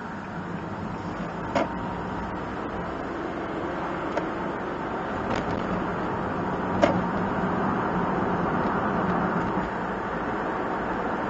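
Cabin noise inside a moving kei one-box van: steady engine hum and road noise that grows gradually louder as the van gathers speed. A few short, sharp clicks come through, the loudest about seven seconds in.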